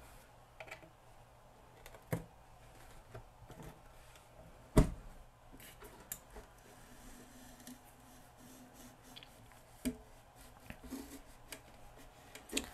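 Rear amplifier plate and plastic port tube of a JBL LSR2325P powered speaker being worked out of the cabinet by hand: scattered clicks and knocks with light scraping, the loudest a sharp knock about five seconds in.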